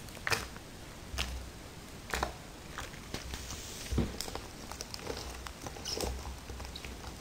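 Clear Elmer's glue slime, still a little sticky, being kneaded and pressed by hand on a wooden table: faint scattered squelches and sticky clicks, a few seconds apart.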